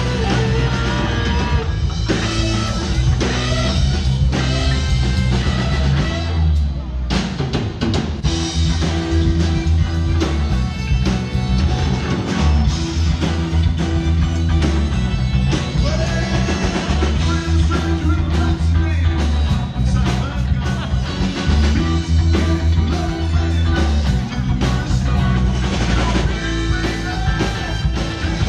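Live rock band playing amplified through a PA: electric guitars, bass and drum kit, with singing.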